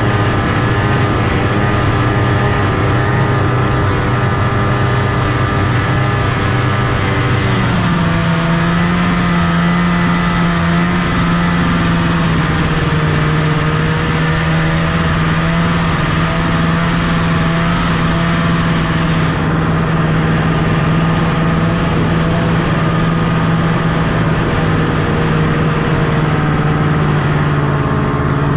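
1974 Arctic Cat Cheetah 340's Kawasaki two-stroke engine running under way through snow, its note stepping up in pitch about eight seconds in and then holding steady.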